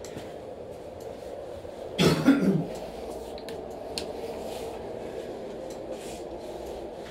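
A person coughs, a short double cough about two seconds in, over a steady low room hum.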